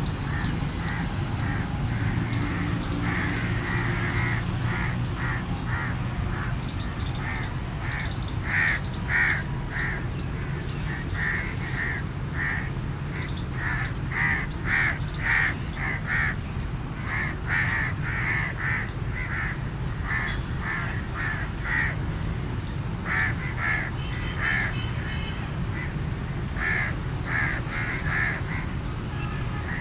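Crows cawing: many short, harsh caws in quick runs over a steady low background rumble.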